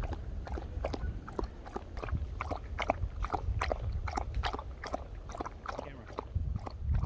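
Dog lapping water from a collapsible silicone bowl, a steady run of quick wet laps about three a second.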